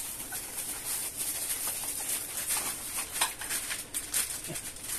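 Plastic packaging crinkling and rustling with irregular light crackles and taps as a bag of gaming-chair casters is handled.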